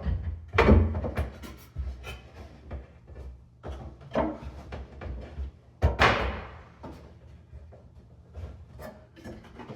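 Wooden cabinet face frame being pushed and fitted into place: a series of knocks and scraping rubs of wood on wood, with the sharpest knock about six seconds in and lighter rubbing near the end.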